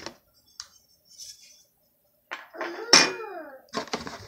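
Packaging and hard parts being handled in a cardboard box: a small click, a pause, then rustling and clatter with one sharp knock about three seconds in as a camera mounting bracket is set down on the table.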